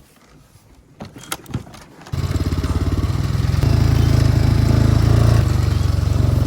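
A few faint clicks, then a small engine comes in abruptly about two seconds in and runs steadily with a fast, even throb.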